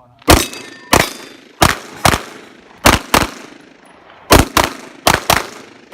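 Handgun fired about ten times in rapid succession, mostly in quick pairs of shots a quarter to half a second apart, each crack followed by a short echo.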